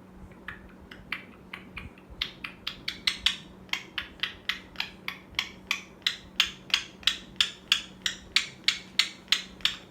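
Repeated sharp tapping or knocking, about three taps a second, faint at first and louder from about two seconds in.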